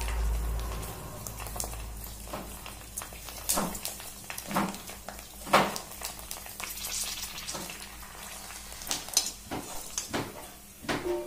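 Panipuri discs sizzling in hot oil in a metal kadai as they puff up into hollow balls, with a metal slotted skimmer knocking against the pan now and then, most sharply about halfway through.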